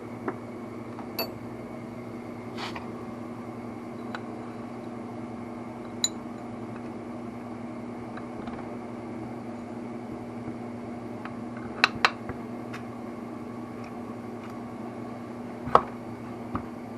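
Scattered sharp metallic clicks and clinks, some ringing briefly, from small engine parts and tools being handled during a two-stroke top-end assembly; the loudest come as a quick pair about twelve seconds in and once more near the end. A steady hum runs underneath.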